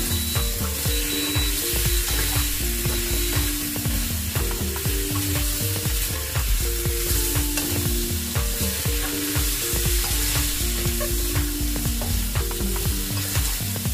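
Chicken, carrots and potatoes sizzling in curry sauce in a stainless steel wok, stirred and turned with a spatula that scrapes and clicks against the pan again and again.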